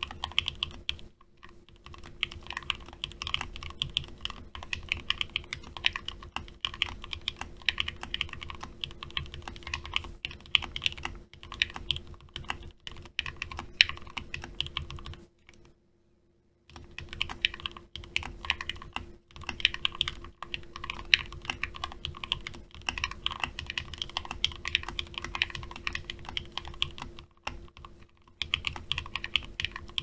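Continuous typing on a custom 60% mechanical keyboard in a wooden case, fitted with lubed Gateron Yellow linear switches and PBT Cherry-profile keycaps: a dense stream of rapid keystrokes, with a pause of about a second midway and a few shorter breaks.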